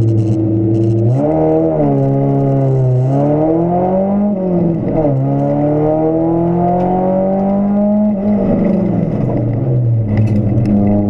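Volkswagen Golf 2 GTI 16V race car's four-cylinder engine, heard from inside the cabin: held at steady revs on the start line, then launching about a second in and revving up through the gears with two quick upshifts, before the revs fall away near the end as the driver lifts off.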